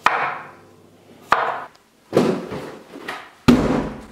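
Chef's knife chopping vegetables on a wooden cutting board: slow single chops, each a sharp knock of the blade on the board, the later knocks heavier and louder.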